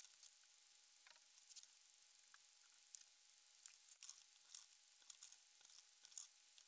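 Faint, scattered light clicks and taps from plastic bottle tops and CDs being handled and pressed together on a desk.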